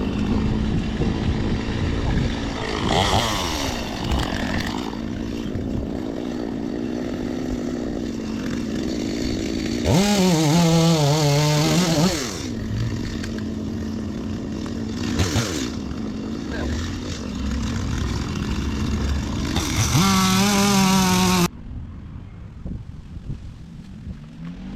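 Gas chainsaw running at a steady idle, then opened up to full throttle twice for about two seconds each, its pitch wavering under load as it cuts. The engine sound stops abruptly about three seconds before the end.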